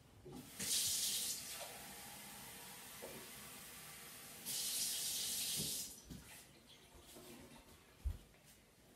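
Kitchen tap running water into a drinking glass: a steady rush of water with two louder spells of about a second each, one near the start and one about halfway, before the flow stops. A short thump near the end.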